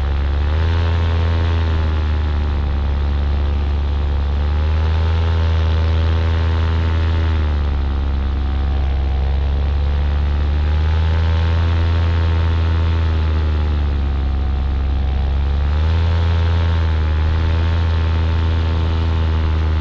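Paramotor engine and propeller running steadily close to the pilot, its pitch rising and falling a few times.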